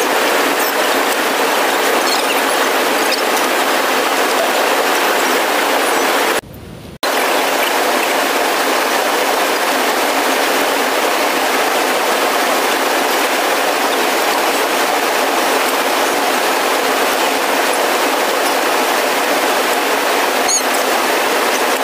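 Steady, even rush of falling and flowing water from a waterfall and its stream. It drops out briefly about six and a half seconds in, then carries on unchanged.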